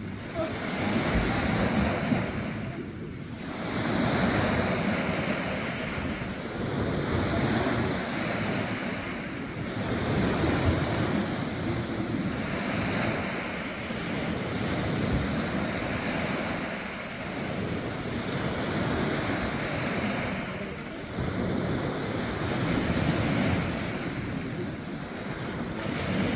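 Small waves breaking and washing up on a sandy shore, swelling and fading every two to three seconds, with wind buffeting the microphone.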